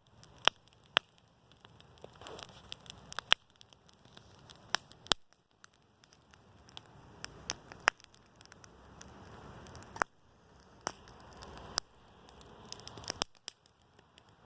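Wood campfire crackling: irregular sharp pops and snaps over a soft hiss.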